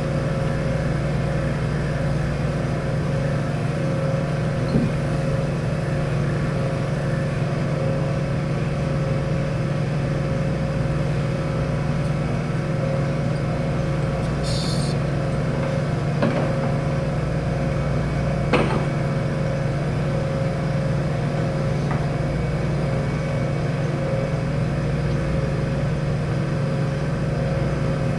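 Steady mechanical hum of laboratory machinery with a constant tone in it, with a brief hiss about halfway through and a couple of faint clicks a few seconds later.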